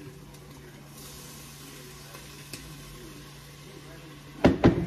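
Beef sizzling as it browns in a pot on the stove, over a steady low hum. About four and a half seconds in, a brief, loud clatter of a few knocks.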